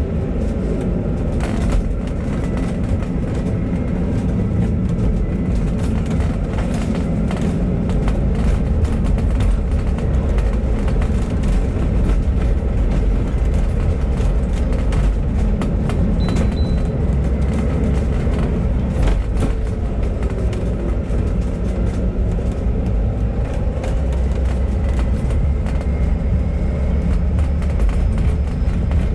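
Bus on the move: a steady low engine drone and road rumble, with the engine pitch rising and falling a few times as it changes speed, and occasional short knocks and rattles.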